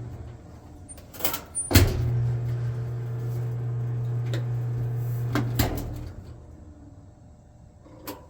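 A Kenmore 80 Series electric dryer's motor hums steadily for about four seconds, starting and ending with sharp clicks. The drum is not turning, because the drive belt has broken and the motor is running with no load.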